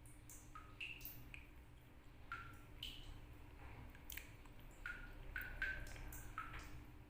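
Water dripping from a tap, about a dozen drops at irregular intervals, each landing with a short pitched plink. The pitch changes from drop to drop, so together they sound like a little tune.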